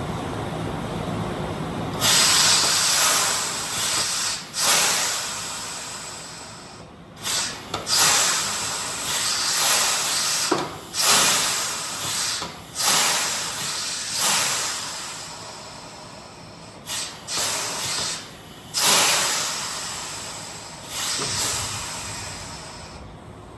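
Pressurised air or gas hissing out in about a dozen loud bursts, some long and some short, starting about two seconds in.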